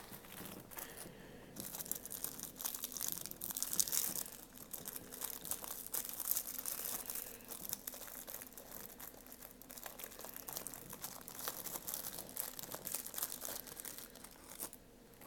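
Pop-Tart wrapper crinkling and rustling as it is handled, with many quick irregular crackles that thin out near the end.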